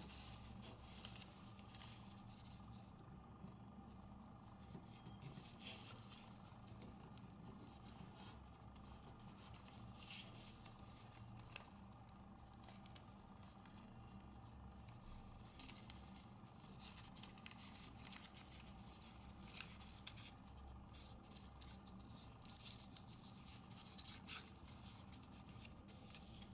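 A sheet of origami paper being folded by hand, with faint rustling and many short crisp crackles and scrapes as creases are pressed, over a low steady hum.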